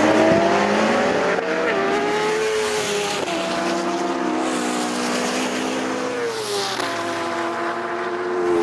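Racing engines at full throttle as an Ariel Atom V8, a 600bhp Citroen DS3 rallycross car and a BMW HP4 superbike launch from a standing start and accelerate hard. Their pitch climbs and drops back at the gear changes, clearly twice.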